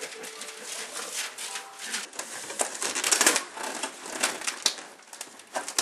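Wrapping paper being torn and pulled off a large cardboard box, a run of ripping and crinkling with sharper tears now and then.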